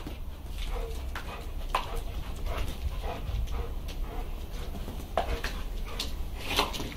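Two pit bull–cross dogs playing on a tiled floor: scattered clicks and scuffs of claws and paws on the tiles, with a few short dog vocal sounds.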